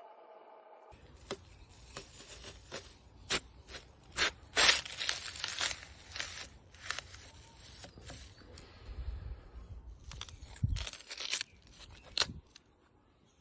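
Kinetic sand being squished and crumbled, giving a run of crunching, crackling sounds with sharp clicks, busiest about four to six seconds in and again near the end.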